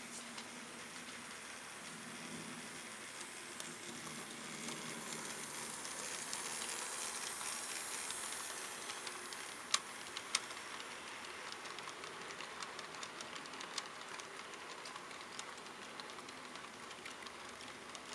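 HO-scale model freight train of open hopper cars running past: a steady hiss that swells as the train draws nearest, with light ticking from the wheels over the track and two sharper clicks about ten seconds in.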